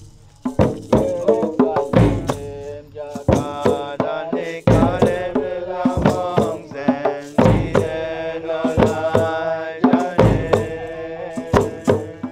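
Nyabinghi drumming: Rastafari hand drums played in a steady rhythm, with a deep bass-drum stroke about every two and a half seconds. From about three seconds in, voices join, chanting long held notes over the drums.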